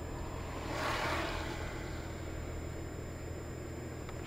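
Steady low engine and road rumble of a car being driven, heard from inside the cabin, with a brief swell of rushing noise about a second in.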